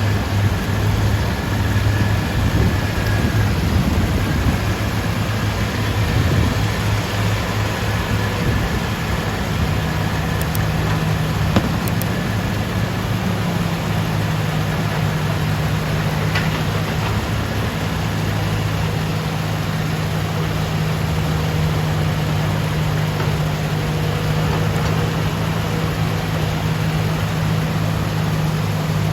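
Hitachi Zaxis excavator's diesel engine running steadily under work, its hum stepping up in pitch about a third of the way in, with a single knock a little later.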